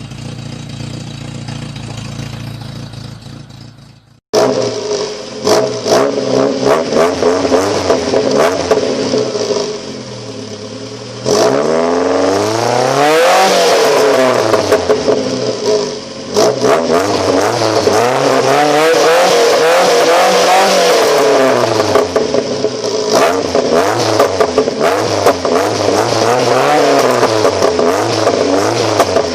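VW Golf Mk2 engine revved hard again and again, its pitch climbing and falling, with many sharp cracks among the revs. It opens with a quieter steady run that cuts off about four seconds in before the loud revving starts.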